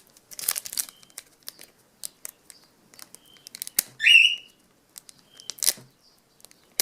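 Trading-card pack wrappers crinkling and tearing in bursts as packs are opened and handled. Twice, about four seconds in and again at the very end, a loud short rising whistled chirp stands out above the crinkling.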